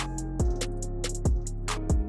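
Background trap beat: a deep bass kick and crisp hi-hats over a sustained bass and a plucked melody.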